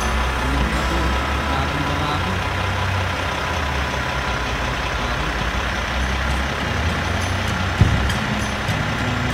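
Semi truck's diesel engine idling steadily, with a single sharp click near the end.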